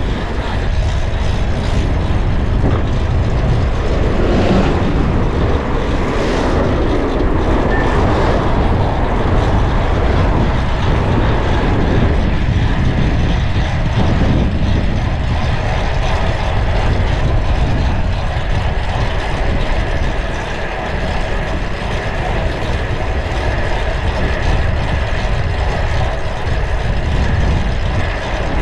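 Steady rush of wind on the microphone and city traffic noise, heard while riding a bicycle through traffic.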